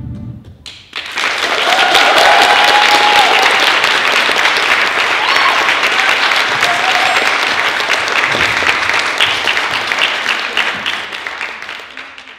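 Music stops and a small audience applauds, clapping steadily with a few whoops and cheers, then the applause fades out near the end.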